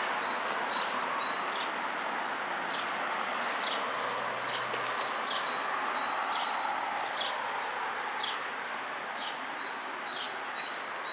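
A bird repeating a short, high, falling call about once a second over a steady rushing background noise.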